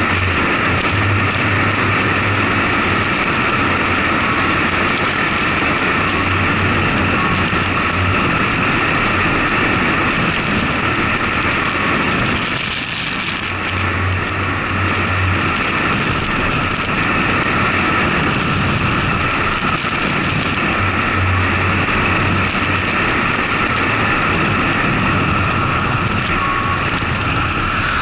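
Wind and road noise on an action camera's microphone mounted outside a moving truck: a steady rush of air and tyres with low buffeting that comes and goes, easing briefly about halfway through.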